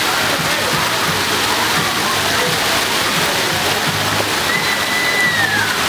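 Pool fountain jets spraying water into the pool, a steady rushing splash with no let-up.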